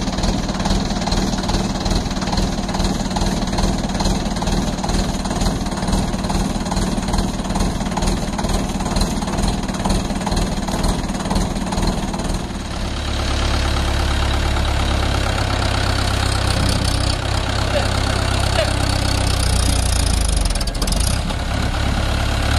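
Mahindra 575 DI tractor's four-cylinder diesel engine idling steadily. About halfway through, the engine sound becomes deeper and a little louder.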